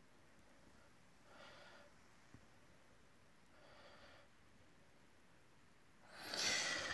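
A person breathing close to the microphone: two faint breaths, then a louder breath near the end.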